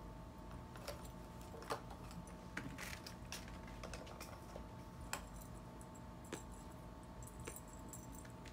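A cat wand toy's fluffy lure being flicked and dragged across carpet: scattered light clicks and small jingly rattles, sharp ticks roughly a second apart, over a faint steady hum.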